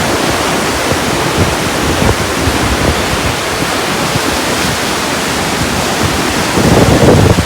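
Loud, steady rush of fast-flowing mountain water, a river or waterfall in full spate, swelling louder briefly near the end.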